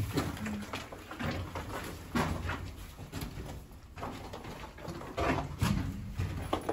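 Pigeons cooing in an abandoned concrete building, mixed with irregular scuffs and knocks.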